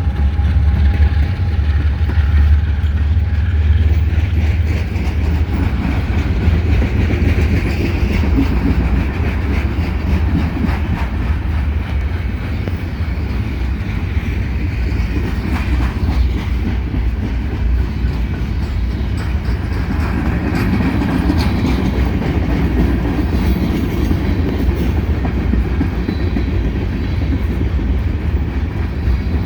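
Freight train rolling past close by: a heavy, steady low rumble of wheels on the rails, with clickety-clack as the cars cross the rail joints.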